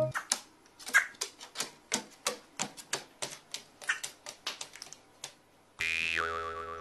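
A rapid, irregular series of sharp clicks, about four a second. About six seconds in, music starts.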